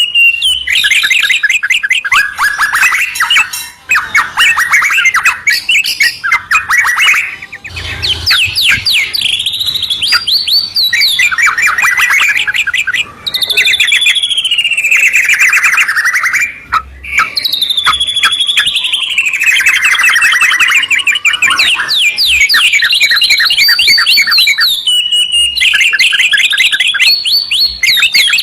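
White-rumped shama and yellow-vented bulbul singing loudly and almost without pause. Fast runs of repeated chattering notes alternate with long sweeping whistled phrases that rise and fall.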